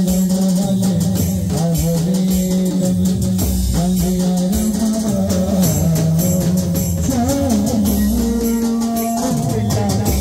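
Live band playing garba music: drums and a drum kit keep a dense beat under a held melody line that steps between sustained notes.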